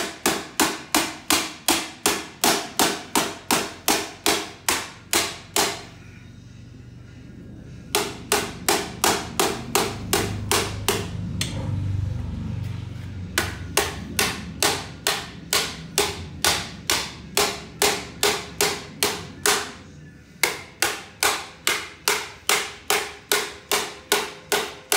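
Hammer blows on the bent sheet-metal chain case of a Poulan front-tine tiller set on an anvil: steady, sharp metal knocks about three a second, in runs broken by three short pauses.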